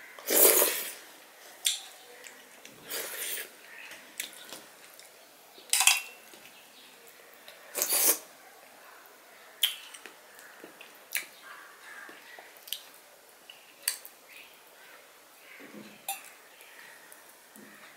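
Eating by hand from a steel plate: several loud, wet slurps as soupy dal and rice are sucked off the fingers, about four in the first half. Between them come many softer mouth smacks and small clicks of fingers on the plate.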